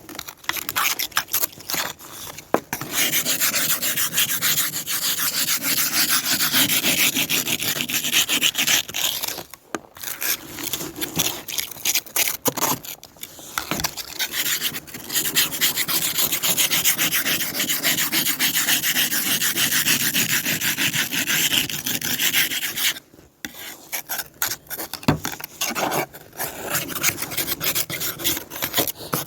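Ice scraper scraping frost and ice off a car's frozen window glass in fast, rasping strokes, stopping briefly a few times before starting again.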